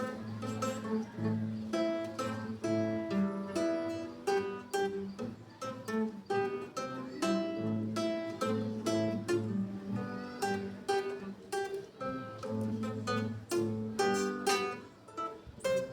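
Acoustic guitar (violão) played solo, notes plucked one after another with bass notes ringing under a melody.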